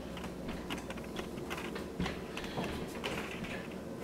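Faint, irregular light clicks and taps, a few each second, over a low steady background.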